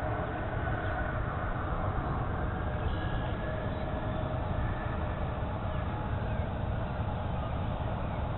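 Distant jet engines of an Airbus A300-600 freighter (General Electric CF6-80C2 turbofans) as it rolls out after landing. They are heard as a steady rumble with a faint held whine on top.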